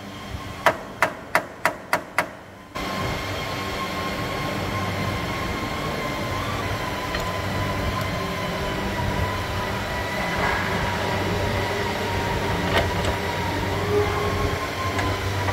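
Six sharp metal knocks, about three a second, then suddenly a steady mechanical hum with a faint whine, like workshop machinery running.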